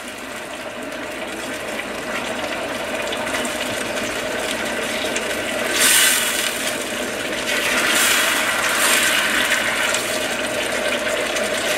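Wine-and-tomato sauce bubbling in a stainless steel pan over high heat while a spatula stirs and scrapes through it. The sloshing swishes are louder about six seconds in and again around eight to nine seconds.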